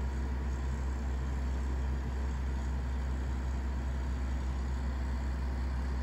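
Grove RT60 rough-terrain crane's diesel engine idling steadily with a low, even drone.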